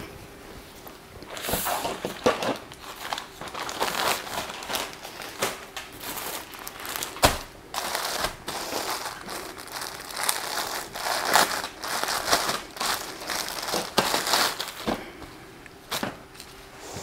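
Packaging crinkling and rustling in irregular bursts as the next bathing suit is handled and taken out, with a sharp click about seven seconds in.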